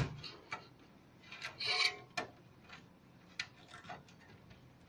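Cables being tucked and routed inside a PC case during cable management, rubbing against the case: scattered small clicks and a short rustling scrape about one and a half seconds in.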